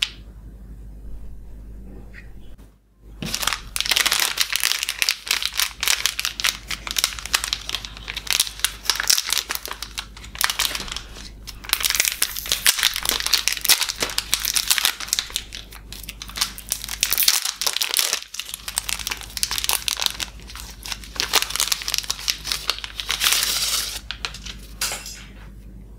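Plastic candy wrapper being crinkled and torn open by hand, in a dense run of crackling that starts about three seconds in, with a short break a little past the middle.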